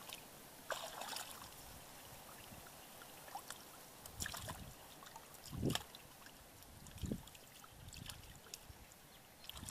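Hands splashing and sloshing in shallow muddy paddy water, with a few short wet splashes and one louder low splash a little past the middle as a caught fish goes into a plastic basin of water.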